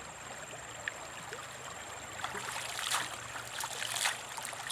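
Water trickling and splashing, with scattered small splashes that grow louder and more frequent in the second half, over a thin steady high whine.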